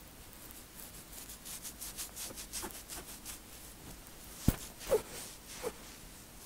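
Fingertips massaging and scratching a braided scalp between cornrows: a run of quick, faint scratching strokes. About four and a half seconds in there is one sharp knock, followed by two short squeaks.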